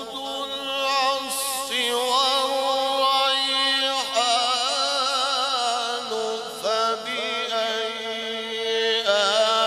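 A male qari chanting Quran recitation in long, melodic held phrases, his voice wavering through ornamented turns of pitch, with short breaks about four, six and nine seconds in.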